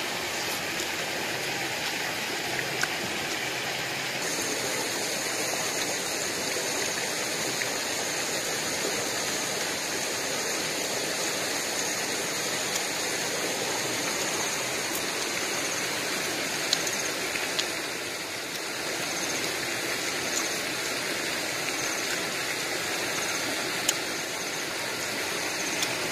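Stream water running steadily over rocks, an even rushing hiss with no pauses. A steady high-pitched tone joins about four seconds in, and there are a few faint clicks.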